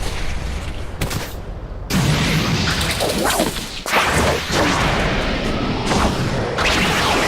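Dragon Ball–style anime fight sound effects: fast whooshes layered with booms and impact hits, in dense succession. The level jumps suddenly about two seconds in and again about four seconds in.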